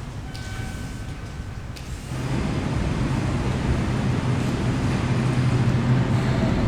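A vehicle running: a steady low rumble with a low hum, which gets louder about two seconds in.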